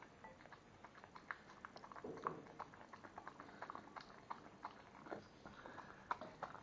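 Miniature schnauzer eating spaghetti: a faint run of irregular wet clicks and smacks of chewing and biting, a little louder about two seconds in.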